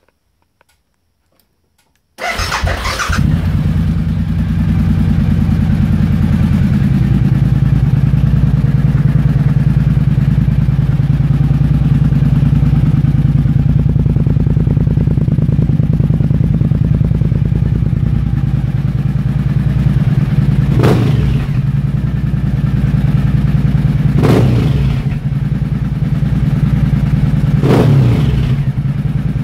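Kawasaki KLV1000's 996 cc V-twin engine started about two seconds in, settling into a steady idle. It is blipped three times near the end, each a quick rev up and back down.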